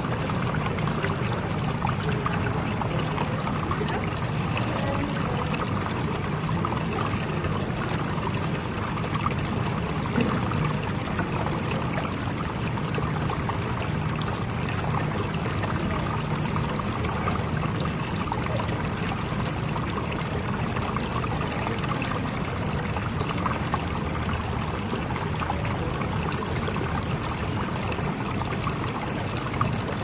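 Small tiered faux-wood stump fountain with water trickling and splashing steadily down its ledges into the basin.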